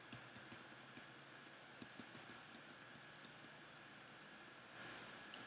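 Faint, irregular ticks of a stylus tapping and sliding on a pen tablet during handwriting, over near-silent room tone.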